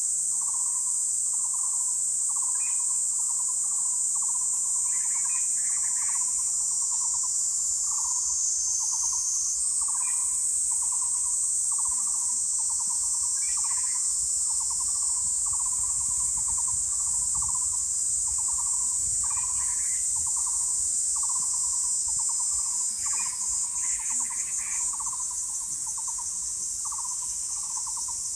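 A steady, high-pitched insect shrill with a repeated short, pulsing animal call underneath, about one and a half notes a second, and occasional brief higher chirps.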